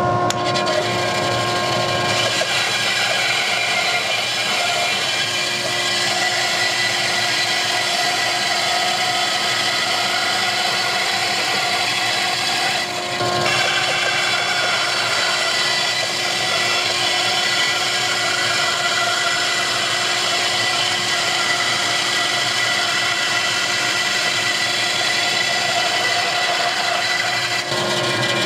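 Bandsaw running with its blade cutting through plywood and hardwood boards fed by hand: a steady motor hum under the noise of the cut. The sound shifts briefly about halfway through and again near the end.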